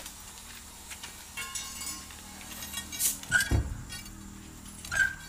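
Metal clinking and clanking at a truck's wheel hub while a spare wheel is fitted, with a heavy thump about three and a half seconds in.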